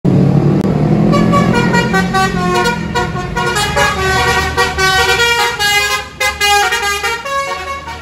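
A bus's telolet basuri musical horn plays a tune of stepped notes, with a low engine rumble under it in the first couple of seconds. The tune stops about seven and a half seconds in.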